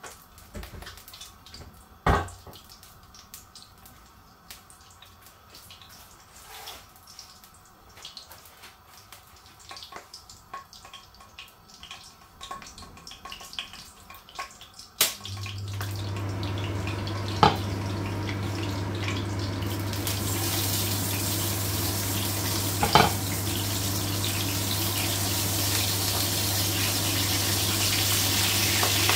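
Pork steaks frying in hot oil in a pan: a sizzle starts suddenly about halfway through and grows louder toward the end, over a steady low hum, with two sharp taps of a fork against the pan. Before the sizzle there are only small handling clicks.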